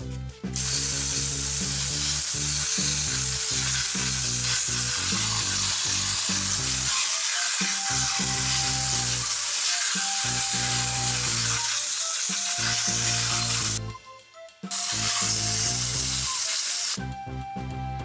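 Garden hose spray nozzle spraying water onto small metal parts in a wire-mesh strainer: a loud, steady hiss that stops for about a second about 14 s in, resumes, and cuts off about a second before the end.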